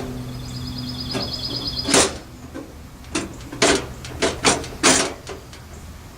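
Sharp knocks and clacks of the new Coleman camp stove's metal parts and packaging being handled, about seven in quick succession in the second half. A steady low hum with a thin high whine runs for about the first second and a half before them.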